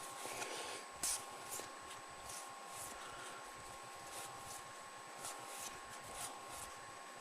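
Trading cards being flipped through by hand: several soft, faint swishes of card sliding over card in the first three seconds, over a faint steady electrical whine.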